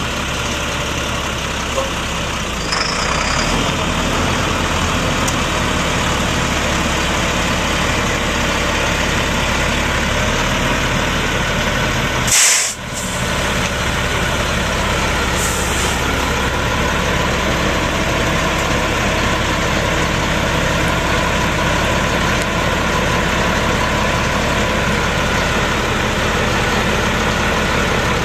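Diesel engine of a 2005 Ford F-650 dump truck idling steadily, with one short, loud hiss of released air about twelve seconds in.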